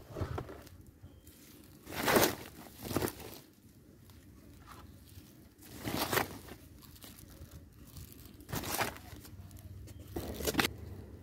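Woven polypropylene sack rustling and crinkling as it is handled and filled with cempedak fruit, in about six short bursts with quieter stretches between.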